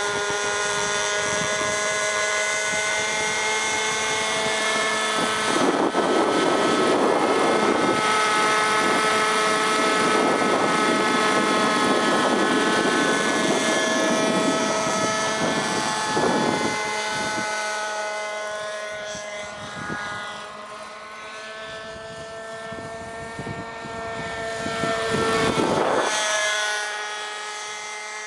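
Radio-controlled scale model helicopter flying: a steady high motor whine over the chop of the rotor blades. It grows louder as the model passes close, fades as it moves away, then swells again with a brief pitch sweep on a second pass near the end.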